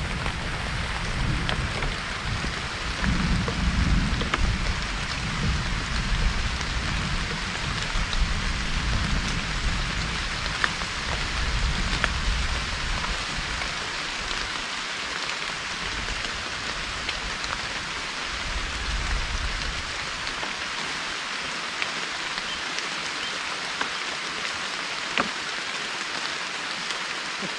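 Steady heavy rain falling on lake water and leaves, with scattered sharp drop ticks. A low rumble sits under it for the first twenty seconds or so, then drops away.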